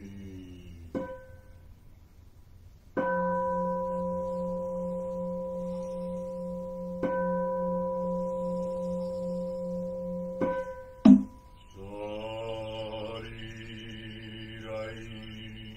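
Large Buddhist bowl bell struck, a light stroke about a second in and then three full strokes about four seconds apart, each ringing on with a long sustain and a slow, wavering hum in its lowest tone. A sharp, loud knock follows just after 11 seconds, and a man's chanting voice begins about a second later.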